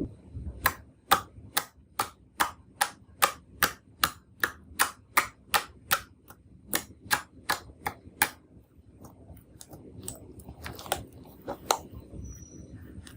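Slime being played with, giving sharp clicks at about two a second, evenly spaced. They thin out to a few scattered clicks about two-thirds of the way through.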